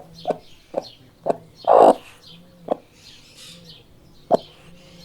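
Chickens clucking: short, sharp clucks at irregular intervals, with one louder, drawn-out call about two seconds in, over faint higher chirping.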